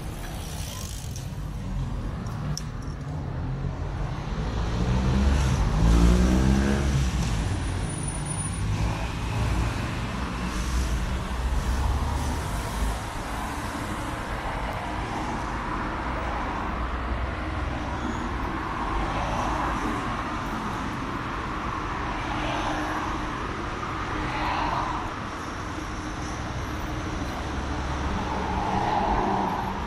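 City street traffic: cars passing on a boulevard with a steady tyre-and-engine rumble. About six seconds in, one vehicle accelerates past, its engine note rising and growing loudest.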